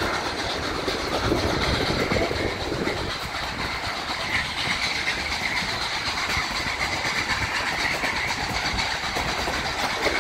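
Train running along the track, heard from on board: a steady noise of wheels on rails. A high, thin whine joins in about four seconds in.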